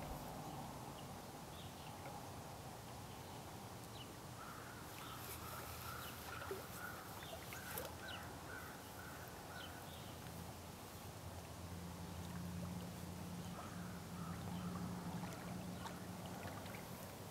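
Lake water lapping gently at the shore, with a bird calling in a quick run of short notes, about two a second, for several seconds in the first half. A low steady hum comes in during the second half.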